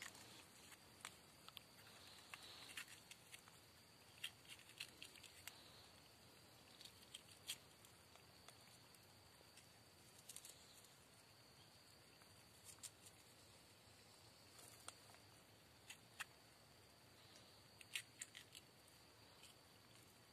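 Near silence with faint, scattered small clicks and snips of a knife cutting chilies by hand over a cooking pot, over a faint steady hiss.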